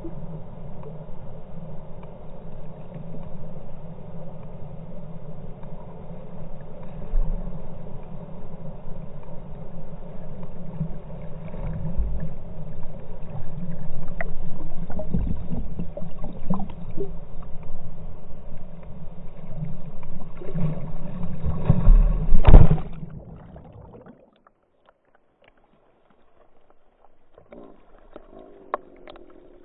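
Boat engine running steadily with a hum, with scattered knocks and a loud thump near the end, then it cuts off abruptly, leaving near silence with a few faint clicks.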